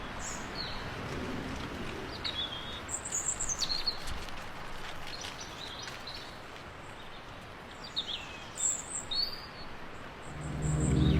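Birds chirping, short high calls coming every second or so over a steady outdoor hiss, with a cluster of calls near the end. Music comes in near the end.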